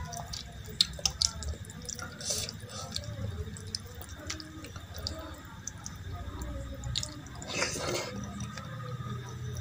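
Wet squishing and squelching of dal and rice being mixed by hand on a steel plate, with scattered light clicks of fingers against the metal. Near the end comes a louder slurping mouth sound as a handful is eaten.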